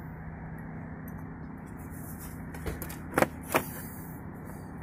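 Two sharp plastic clicks about three seconds in, half a second apart, as the clips of a Cadillac SRX's plastic battery cover are worked loose by hand, over a steady low hum.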